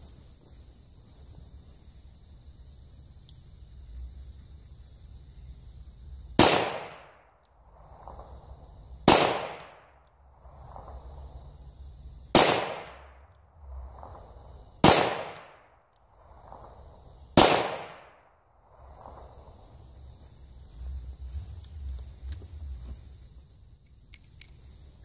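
.357 Magnum revolver fired five times, about two and a half to three seconds apart, with handloads of 5.3 grains of Clay Dot shotgun powder. Each shot is a sharp crack with a short tail. A steady high insect chirring runs underneath.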